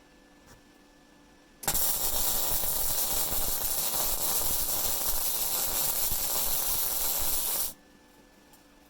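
Rohr MIG-250MI inverter MIG welder's arc laying a weld bead on steel at power 5, wire speed 4: a steady hissing arc that strikes suddenly about a second and a half in, runs about six seconds and cuts off abruptly when the trigger is released.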